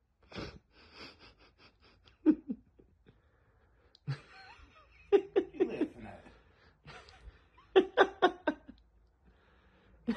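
A person laughing in several short bursts of rapid pulses, with breathy gaps between them.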